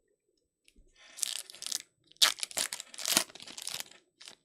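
Trading-card pack wrapper being torn open and crinkled, a crackly rustle for about three seconds with a few sharp crackles in the middle.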